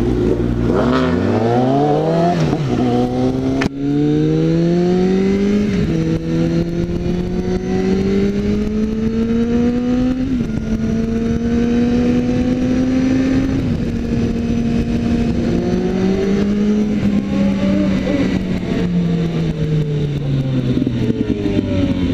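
Suzuki GSX650F inline-four motorcycle engine accelerating through the gears, its pitch climbing and dropping back a little at each upshift, then cruising and falling away as it slows near the end, with wind noise. In the first few seconds a second motorcycle engine revs alongside as both pull away.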